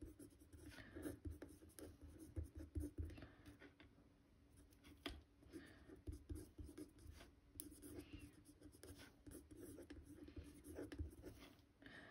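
Faint pen-on-card writing sounds: irregular scratching strokes as a short handwritten message is written on a postcard, with a few soft knocks of hand and pen on the table.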